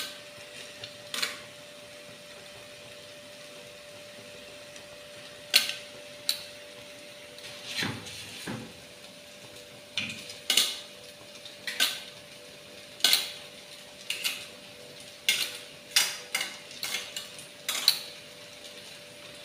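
Metal kitchen tongs clinking against a stainless-steel strainer bowl and a frying pan as spaghetti is lifted and tossed into the sauce: irregular sharp clinks, a few scattered at first and coming quickly, about one a second or more, in the second half.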